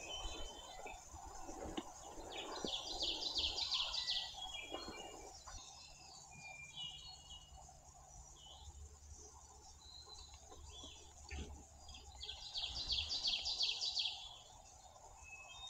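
Woodland songbirds calling: a rapid, high trill sounds twice, about ten seconds apart, among scattered short high chirps.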